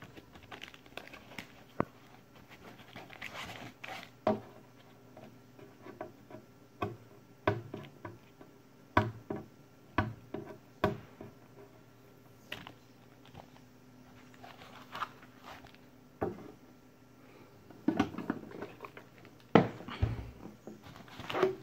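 Unpacking noises: white foam packing being pulled and rubbed off the metal case of a spot welder, with irregular rustling scrapes and sharp knocks as the case is handled and set down. The loudest knocks come near the end.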